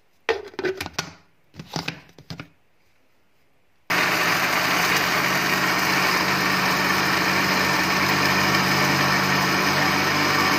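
A few knocks as the blender jar is handled, then an electric countertop blender starts suddenly about four seconds in. Its motor runs steadily, blending apple, banana and milk into a milkshake.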